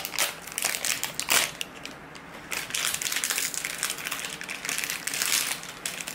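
Plastic wrapper of an ice cream sandwich crinkling as it is peeled open and handled, in bursts of crackling with a short lull about two seconds in.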